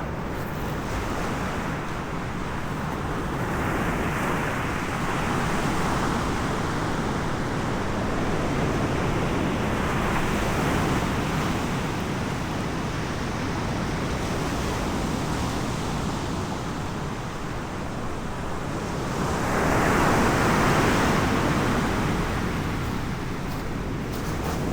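Sea surf: a steady rush of waves that swells and eases every several seconds, loudest about twenty seconds in.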